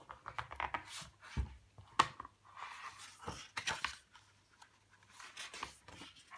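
Hardcover picture book opened by hand and its thick pages turned: a string of sharp clicks and short papery rustles.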